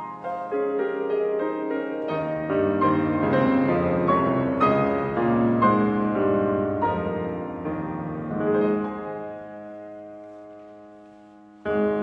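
Yamaha grand piano playing a slow solo piece: a passage of notes across the middle and low range, then the sound is left to ring and fade for a few seconds. Near the end a new chord is struck loudly.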